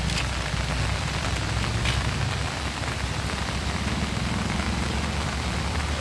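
Steady hiss of rain with the low, steady drone of a laden Mitsubishi Colt Diesel light truck's engine underneath as it pulls up a steep grade.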